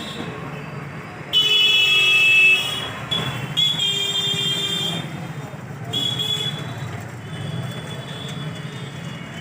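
Street traffic noise with several vehicle horn blasts. The loudest horn sounds suddenly about a second in and lasts about a second, and shorter honks follow over a steady traffic rumble.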